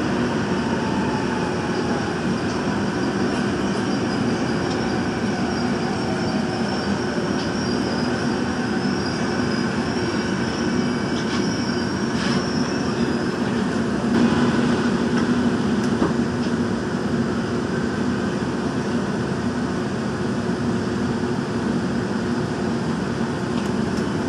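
Daejeon Metro Line 1 subway train running, heard from inside the car: a steady rumble of wheels and motors with a constant low hum. A thin high squeal rises over it for a few seconds around the middle.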